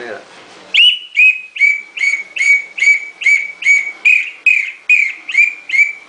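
Totocuic bird-call whistle blown in a quick run of about a dozen short whistled notes, starting about a second in. Each note is a fast downward swoop that settles onto a steady high tone, at about two and a half notes a second, imitating the call of a bird that sings at night.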